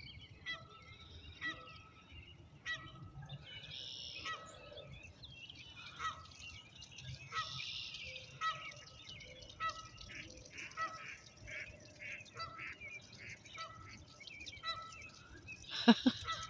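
Canada geese honking over and over, short calls about once a second. A couple of sharp knocks near the end.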